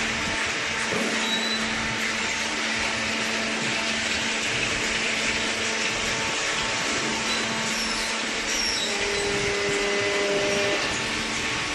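Hydraulic scrap baler running: a steady motor-and-pump hum over a constant hiss. A higher tone joins for a couple of seconds near the end.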